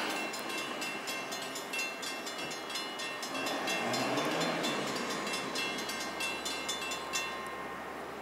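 Long Island Rail Road diesel train approaching in the distance, with a fast run of sharp ticks that stops about seven seconds in.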